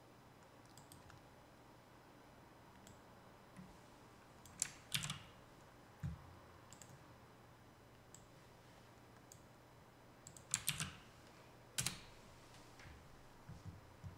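A few short, sharp clicks from a computer mouse and keyboard, two close together about five seconds in and a quick cluster later, over faint room tone.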